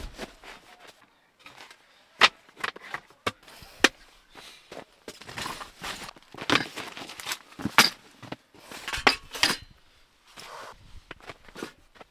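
Camping gear being unpacked and set down by hand inside a tent: an irregular string of clicks, knocks and rustles, with a few sharper knocks as items are put down on a small wooden table.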